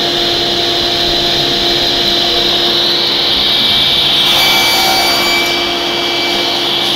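SCM SC 1 Genius sliding-table circular saw running with a steady whine. Between about four and five and a half seconds in, its blade crosscuts a board pushed along the sliding carriage.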